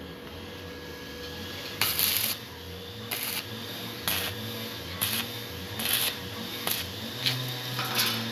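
Stick (arc) welding in short runs: brief crackling, hissing bursts about once a second as the electrode arc is struck and broken on the steel frame, over a steady low hum.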